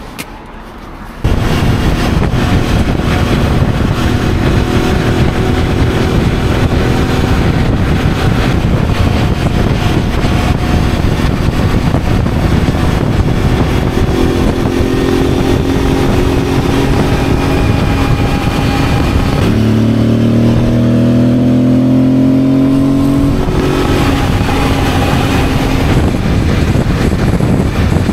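Motorcycle riding at highway speed: loud wind rush over the microphone with the engine's steady hum beneath. About 20 seconds in, the engine pitch rises for a few seconds as the bike accelerates, then settles.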